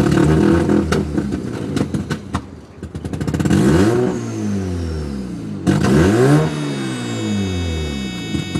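Mazda RX-7 FC's 13B rotary engine running rough and choppy at a low idle and sagging as if about to stall, then blipped twice, the pitch rising and falling each time. The owner says it is idling below the 1,000 rpm it should. In the second half a steady electronic beep sounds over the engine: the car's shift-indicator beep.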